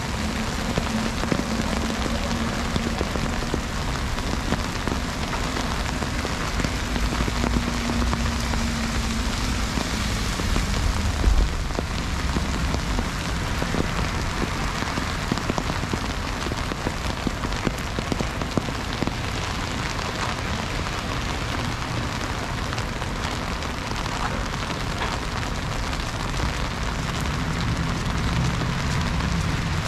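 Heavy freezing rain falling, a dense steady wash of drops striking surfaces. A low hum runs under it for about the first third and fades, and a short low thump stands out about eleven seconds in.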